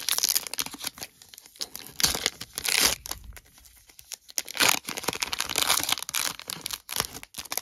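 Plastic wrapper of a Stadium Club baseball card pack being torn open and crinkled by hand, in irregular bursts of tearing and crackling.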